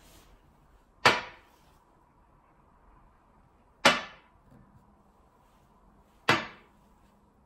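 Three sharp clacks of wooden xiangqi pieces being slapped down onto a felt-covered glass tabletop as moves are played, each with a short ringing tail, about a second, four seconds and six seconds in.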